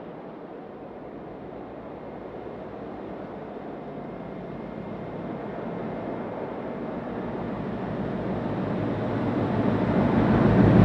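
A train approaching along the line, its engine and wheel rumble growing steadily louder until it is close by at the end.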